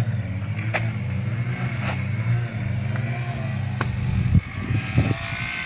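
A motor running steadily with a low, even hum that cuts off abruptly about four seconds in, with a few sharp clicks over it.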